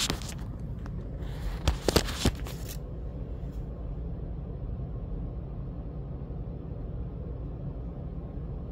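Phone being handled and set in place: rubbing and three sharp knocks close together about two seconds in, then a steady low hum of room noise.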